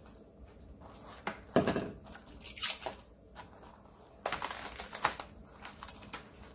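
Plastic cling wrap crinkling and rustling in several irregular bursts as it is stretched over a bowl and pressed down around the rim by hand.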